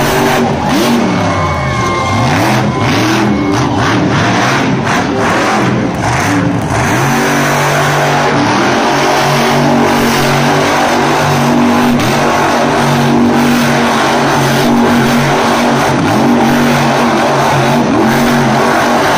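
Monster truck engine revving hard, its pitch rising and falling for the first several seconds, then held at steady high revs for the rest as the truck spins donuts in the dirt.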